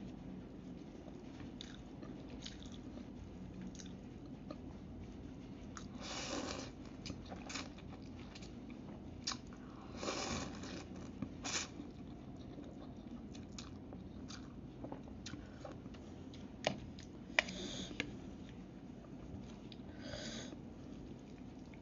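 A person eating instant noodles: chewing, with several short slurps as mouthfuls of noodles are sucked in, and a few sharp clicks near the end.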